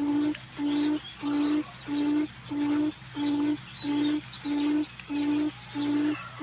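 Forest quail lure call: a steady series of short, low hooting notes on one pitch, about one and a half a second, with faint high swooping bird chirps above.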